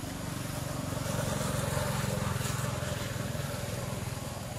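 A motor vehicle's engine droning, growing louder about a second in and easing off near the end.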